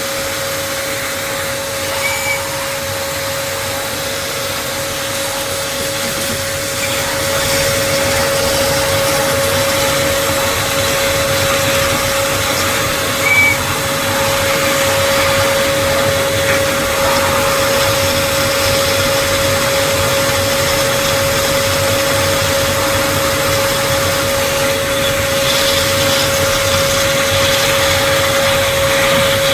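Wet vacuum running steadily with a constant whine, sucking the standing water out of a blocked washing machine through its emergency drain hose. Two brief high chirps cut in over it.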